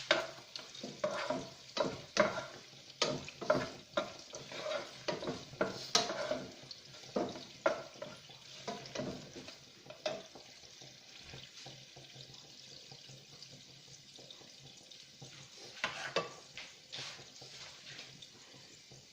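A kitchen utensil knocking and scraping in a cooking pan or pot with irregular strokes, thinning out to a quiet stretch after about ten seconds before a few more strokes near the end.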